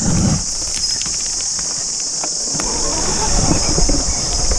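Steady high-pitched drone of insects over the uneven low rumble and knocking of an electric off-road motorcycle rolling over a rough, rocky dirt trail, with scattered clicks of stones and twigs. The rumble grows busier in the second half.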